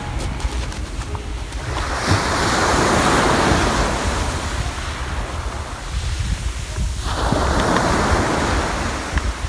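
Sea waves washing onto the shore, swelling twice, about five seconds apart, with wind rumbling on the microphone.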